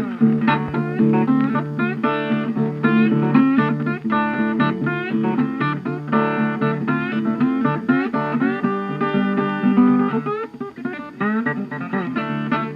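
Guitar-led background music playing steadily.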